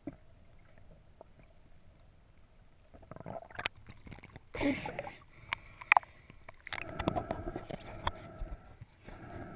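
Underwater water noise heard through a camera housing: quiet at first, then from about three seconds in, bursts of gurgling water with several sharp clicks.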